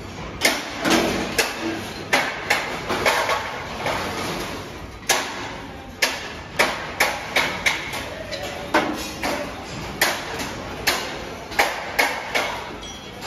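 Sharp metallic knocks and clanks at an irregular pace, about twenty in all and sometimes two or three a second, each ringing briefly, from work on stainless-steel sheet-metal stove bodies, over steady workshop noise.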